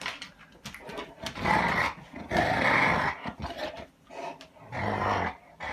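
Akita dog growling in rough play-fighting: three throaty bouts of about a second each, the last one deeper.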